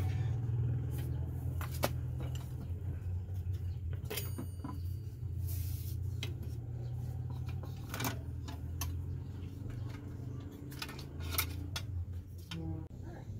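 Scattered light clicks and knocks as a motorcycle front fender is handled and fitted against the fork and wheel, over a steady low hum.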